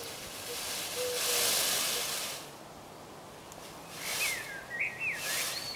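Peacock shivering its fanned train in courtship display, a dry rustling rattle of the feathers in bursts: a long one about a second in, shorter ones near the end. Bird calls sound softly over it, with chirps near the end.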